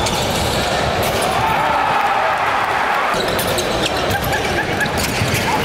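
Basketball bouncing on a hardwood court during play, over the steady din of an indoor arena with voices in it.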